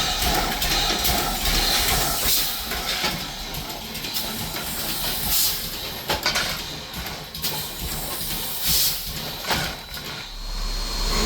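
Steam hissing from 2-8-0 steam locomotive No. 18, with several irregular louder surges of steam.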